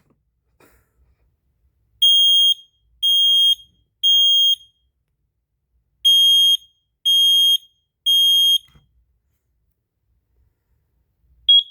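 Kidde 10SDR smoke alarm sounding in the temporal-three evacuation pattern: two rounds of three loud, high-pitched beeps, each about half a second long, with a pause between the rounds. A single short chirp follows near the end.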